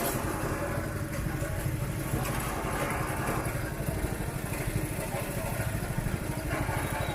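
A motorbike engine running steadily, a low, fast-pulsing rumble amid street noise.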